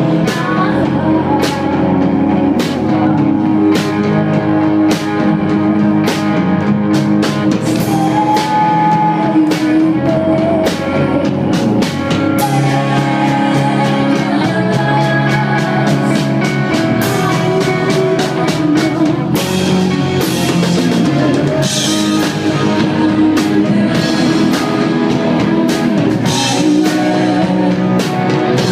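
Live hard rock band playing loud: electric guitars and bass over a steady drum-kit beat.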